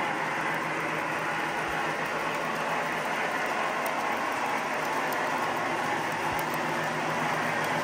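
O-gauge model freight cars rolling past on the track: a steady metallic clatter of wheels on the rails, with a low steady hum underneath.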